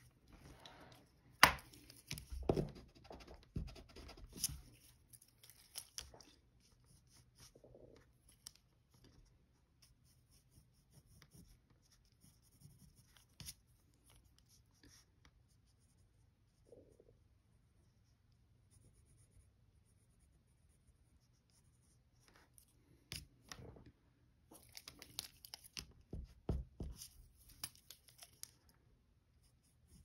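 Pencil scratching on paper in short sketching strokes: a busy spell near the start and another near the end, with fewer, fainter strokes in between. A sharp tap stands out about one and a half seconds in.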